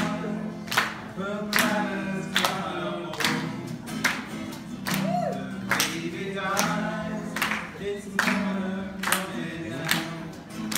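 Live folk song: voices singing a chorus over strummed acoustic guitar and mandolin, with a sharp strum on every beat, a little over one a second.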